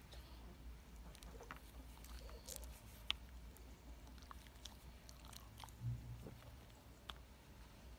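A dog chewing on a twig, making faint scattered crunches and clicks, one a little sharper about three seconds in.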